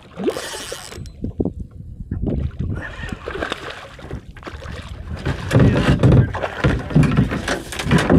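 Water sloshing and splashing around a kayak, with gear being handled in the cockpit, getting busier and louder in the second half.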